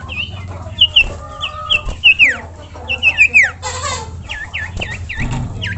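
Common iora (cipoh) calling: a rapid series of short, high whistled notes, many sweeping downward, with a burst of rasping noise just before the four-second mark and a run of quick dipping notes near the end.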